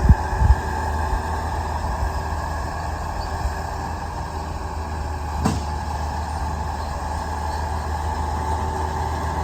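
Diesel engine of earth-moving equipment running steadily while smoothing slate fill on a driveway, with a steady whine over the low engine hum. A couple of knocks come near the start, and a sharp clank about five and a half seconds in.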